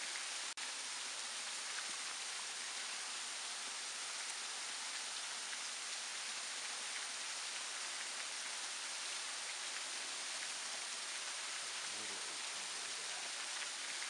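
White Oak Sink Falls, a thin waterfall dropping about 40 feet onto rock, making a steady, even hiss of splashing water.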